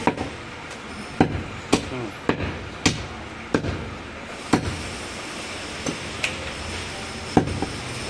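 Heavy butcher's cleaver chopping through goat meat and bone onto a wooden chopping block: about ten sharp, unevenly spaced chops.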